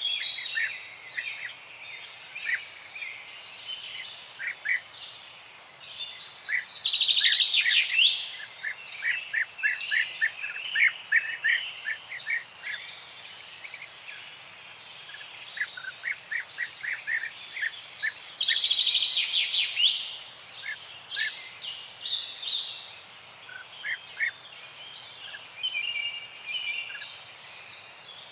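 Several small songbirds chirping and singing, with many short repeated notes and two louder spells of rapid, dense song, about seven seconds in and again around nineteen seconds, over a faint steady outdoor hiss.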